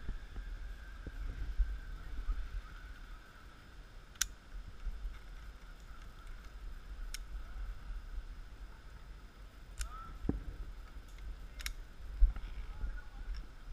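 Four sharp clicks spaced a few seconds apart, over a steady low rumble.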